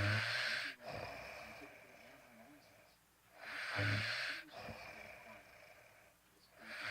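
Snoring in slow, regular breaths: three snores about three and a half seconds apart, one right away, one about four seconds in and one at the end. Each is a short low buzz with a breathy hiss.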